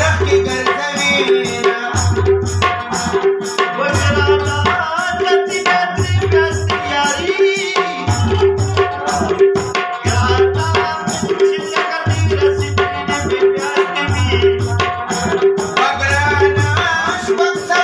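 Rabab playing a Pashto tappa melody over a steady tabla rhythm, the deep drum strokes coming round in a cycle about every two seconds.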